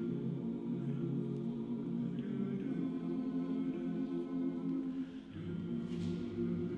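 Men's barbershop chorus singing a cappella in close harmony, holding sustained chords. About five seconds in the sound dips briefly, then a new chord comes in with a lower bass note.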